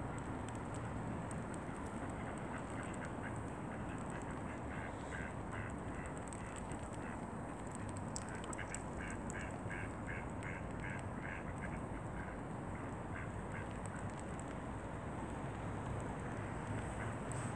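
A duck quacking in two quick runs of short calls, about three a second; the second run, about eight seconds in, is the clearer. A steady low hum and hiss lie under it.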